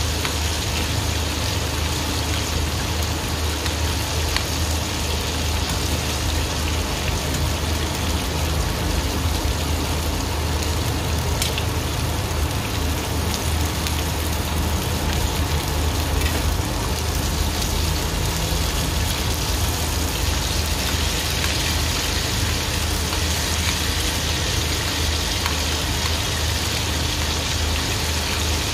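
Food sizzling steadily in a hot frying pan, a dense even crackle with faint scattered pops, over a constant low hum.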